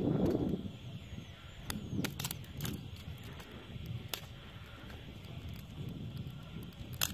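Dry sticks and twigs being handled and broken by hand: rustling, loudest at the start, with a scatter of sharp snaps, the loudest near the end.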